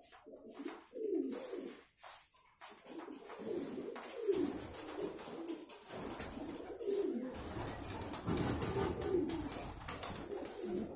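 Several Andijan pigeons cooing over one another in the loft, one low coo after another, with a short lull about two seconds in.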